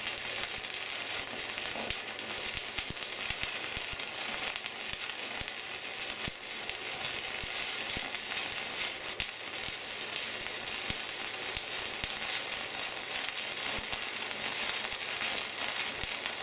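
Stick-welding arc from a MegaTec 160EF welding inverter crackling and sizzling steadily as a coated electrode runs a vertical seam with a figure-eight weave. The electrode is held close to the plate, keeping the arc short.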